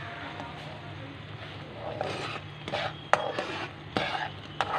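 Metal slotted turner stirring and scraping semolina halwa in a frying pan, with a few sharp taps against the pan, over a faint steady low hum.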